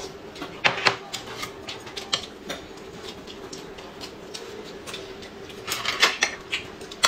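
Eating at a table: irregular small clicks and taps of a spoon and chopsticks against bowls and plates, mixed with mouth sounds of sipping and chewing, with a louder cluster just under a second in and another around six seconds in.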